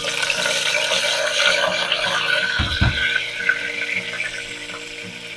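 Curry leaves and whole spices sizzling and crackling in hot oil in a steel pressure cooker, the sizzle slowly dying down. A low knock about two and a half seconds in.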